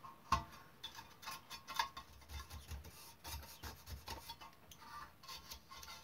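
Short, irregular scratching strokes of a pen-shaped hand tool scrubbing along the soldered seams of a brass tender body, cleaning the crud off freshly soldered joints. A sharp knock about a third of a second in.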